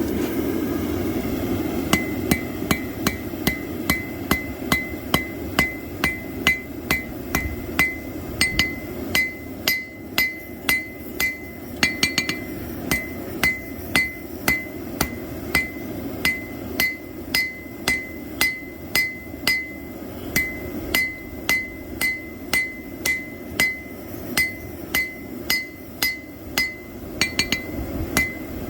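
Hand hammer striking hot plow-disc steel on an anvil, drawing out a knife's tang with steady blows about two a second from about two seconds in, each with a short metallic ring. A steady low rumble runs underneath.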